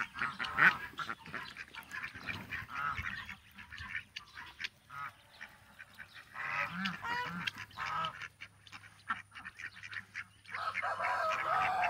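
Farmyard poultry calling: geese honking and ducks quacking, with short high peeps from ducklings in between. Two longer calls come about six seconds in and again near the end.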